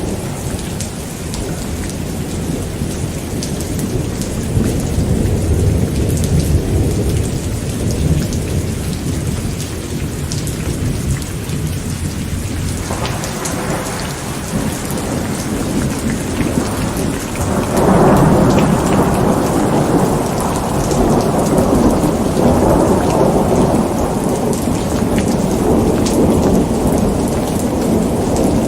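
Steady rain with rolling thunder rumbling throughout; a louder roll of thunder swells up about two-thirds of the way through.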